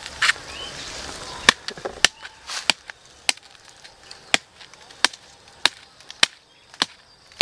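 A knife chopping repeatedly into the base of a young yellow-bamboo shoot to cut it free: about ten sharp strikes, roughly one every half second or so, starting about a second and a half in. The knife seems blunt, so it takes many blows.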